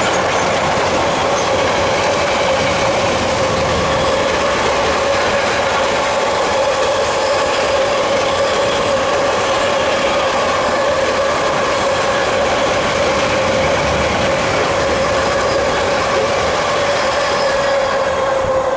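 Freight train wagons, sliding-wall covered wagons and then car-carrier wagons, rolling past in a steady loud rumble with a constant whining tone over it. The noise starts to fall away at the very end as the last wagon clears.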